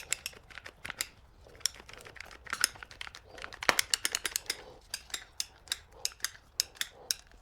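Many quick, irregular clicks and crinkles as styrofoam adhesive is applied and the foam is handled.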